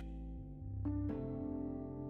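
Soft ambient background music of long, sustained notes, with new notes coming in about half a second and about a second in.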